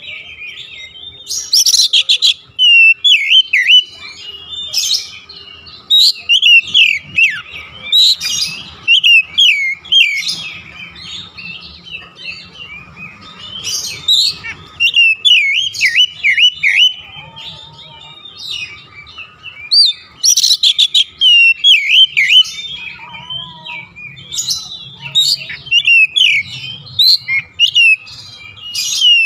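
Oriental magpie-robin singing a loud, varied song of quick whistled phrases, broken every few seconds by short harsh, scratchy bursts.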